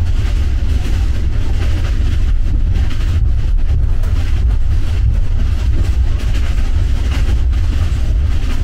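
Passenger train running along the track, heard from inside a sleeper compartment: a loud, steady low rumble with constant rattling.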